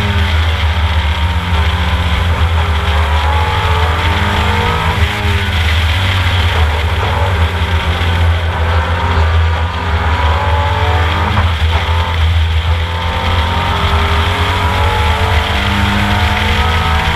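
Ford Capri race car's engine heard onboard at racing speed, a loud steady rumble with the revs repeatedly climbing and dropping through the gears and corners.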